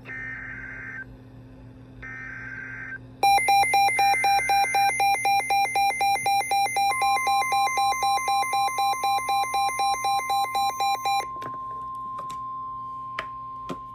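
Emergency alert tones for a severe thunderstorm warning. Three short bursts of warbling SAME data header, each about a second long and a second apart, are followed by a weather radio receiver's alarm beeping rapidly for about eight seconds. Partway through the beeping, the long steady NOAA Weather Radio warning alarm tone comes in and holds to the end.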